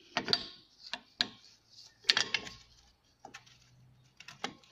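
Irregular clicks and taps, about eight in all, from parts and tools being handled on a Nissan RD28 VE-type diesel injection pump during disassembly.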